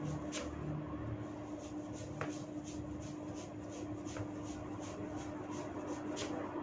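Hands rubbing and tugging through hair on the scalp, giving a rhythmic scratchy rustle about three times a second. A few sharper snaps, about two seconds apart, come from hair tufts being pulled to crack. A steady low hum runs underneath.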